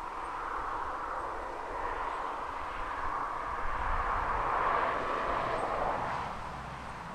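Distant engine noise of something passing, swelling gradually to a peak about four to five seconds in and then fading, over a low rumble.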